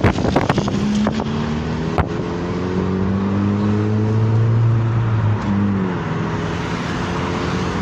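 Chevrolet Meriva's engine pulling under throttle through a new sporty exhaust tip, the muffler already replaced by a straight pipe; its pitch rises about a second in, holds higher, then drops about five and a half seconds in and runs on lower. A few clicks near the start.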